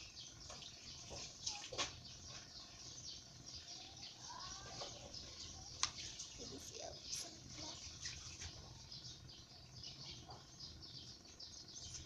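Small birds chirping in the background, a steady stream of many quick, high chirps with a few sharper clicks among them.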